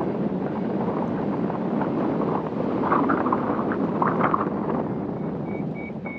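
Airflow rushing over the microphone of a paraglider pilot in flight, a steady noisy rush with a few louder gusts about three and four seconds in. Near the end a variometer starts beeping, short high beeps about three a second: its climb tone.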